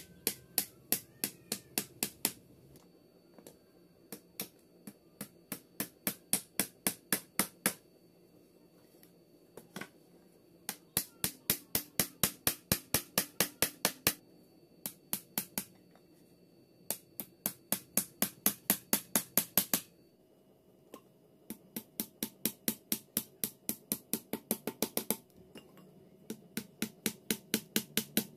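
Pliers used as a hammer, tapping small panel pins into thin wooden slats. The taps come in quick runs of about five or six a second, broken by short pauses.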